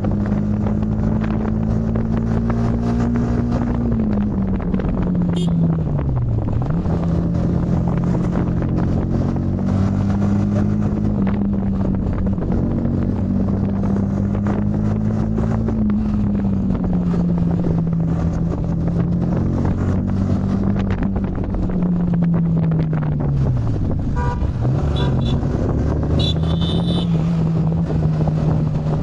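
Yamaha MT-15's 155 cc single-cylinder engine running under way on a ride. Its note holds steady, then falls steeply twice, about five seconds in and again about twenty-three seconds in, before settling back.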